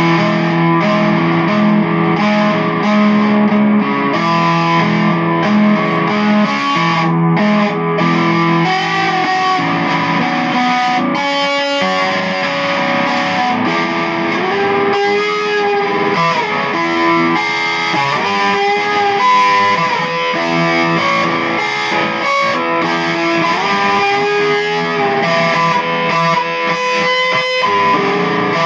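Music: an electric guitar played through effects, with long held notes and several notes that slide in pitch.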